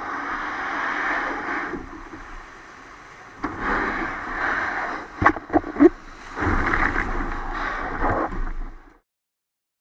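Surf washing in the shallows around a plastic fishing kayak as it is walked in and pulled up onto the beach. A quick run of sharp knocks comes a little past the middle, and the sound cuts off suddenly near the end.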